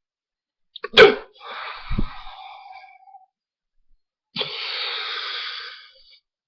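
A person's loud, sharp hiccup about a second in, trailing into a breathy exhale, with a low thump near two seconds in. A long, steady breath follows about four and a half seconds in, lasting about a second and a half: a deep breath taken to try to stop the hiccups.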